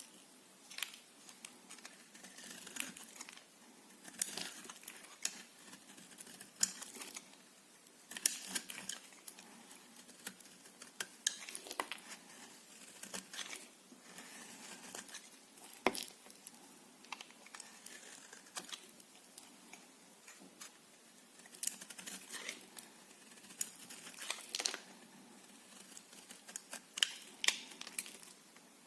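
Knife cutting through bar soap, a cluster of short, crisp crackling strokes every second or two.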